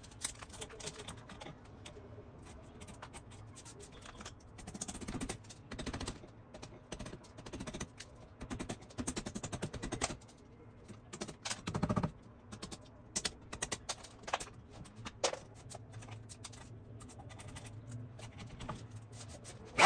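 Steel wood chisel scraping and prying dry bark off a tree branch, with a mallet tapping on the chisel: irregular clusters of clicks, cracks and scrapes as pieces of bark break away, busiest around the middle.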